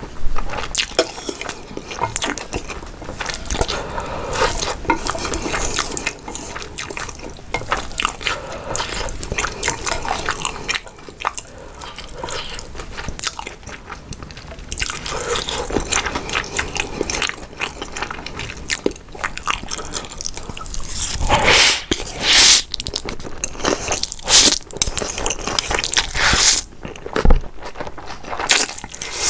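Close-miked eating of Samyang Nuclear Buldak spicy stir-fried noodles: steady wet chewing, smacking and clicking mouth sounds, with a few louder, longer mouth sounds in the second half.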